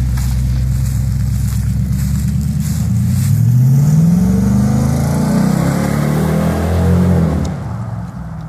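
Chevrolet S-10 Blazer's swapped-in 5.3 V8 pulling away and accelerating: a low rumble, then the engine note rising in pitch with drops as it shifts up, fading near the end as the truck drives off.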